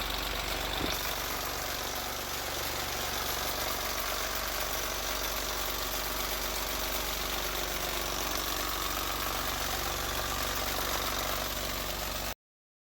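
Cordless reciprocating saw (Sawzall) running steadily as the motor of a homemade squeeze-clamp paint-can shaker, an even mechanical drone that cuts off suddenly near the end.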